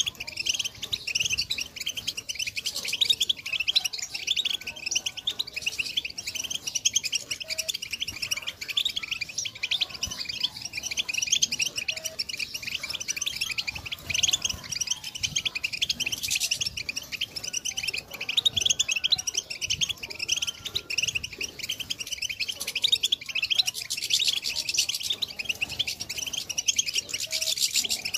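European goldfinches twittering and singing without pause, many quick high chirps overlapping into a dense chatter, the kind of goldfinch 'betbeta' chatter used as a lure for trapping wild goldfinches.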